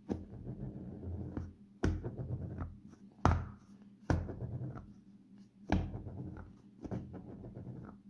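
A small RC crawler tire and wheel spun flat on its side on a wooden tabletop, about six times. Each spin starts with a sharp knock as it is flicked going, then a whirring rumble that dies away.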